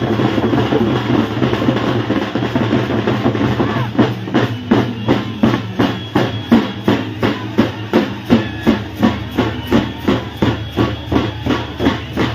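Music with a dense, busy mix at first. From about four seconds in, a steady drumbeat comes forward at about two to three strikes a second.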